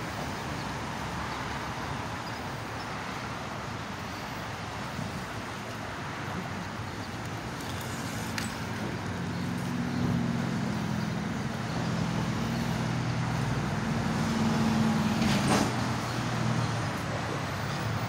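Outdoor road-traffic noise, joined about halfway in by a motor vehicle's engine running nearby, its low hum growing louder.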